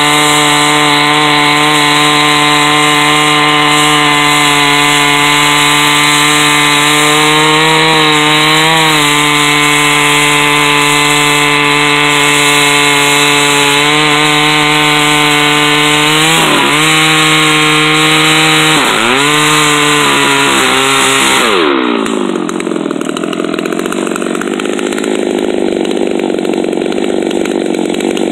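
Chainsaw in a chainsaw mill running at full throttle, ripping a poplar log lengthwise into a board. Its pitch dips briefly twice, then falls away as it comes off throttle at the end of the cut, and it runs on at low speed for the last several seconds.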